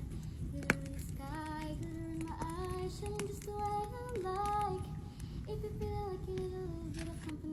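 A high voice singing a slow melody in long held notes, over a steady low rumble, with one sharp click under a second in.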